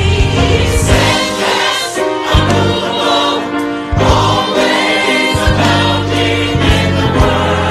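Gospel choir singing with band accompaniment: bass, keys and drums.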